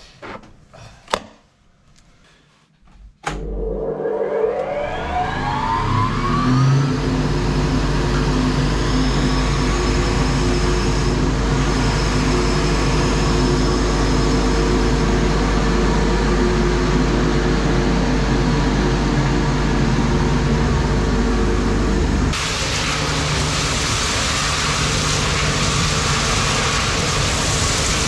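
A few knocks and clicks, then about three seconds in a wood chip blower starts, its fan spinning up with a rising whine over a steady engine drone. Near the end the sound turns suddenly hissier: the rush of wood chips being sucked through the blower.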